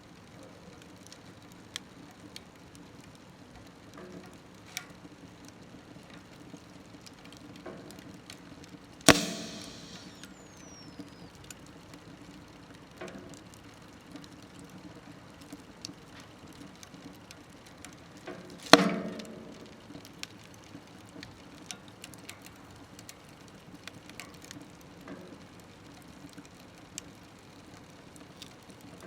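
Wood fire crackling in a small smokeless wood stove: scattered faint ticks and snaps, with two loud pops, one about nine seconds in and another near nineteen seconds.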